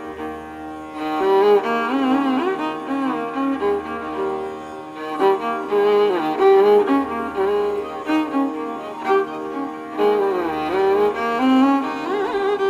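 Background music: a melody with sliding notes over a steady held drone, with a soft low pulse every few seconds.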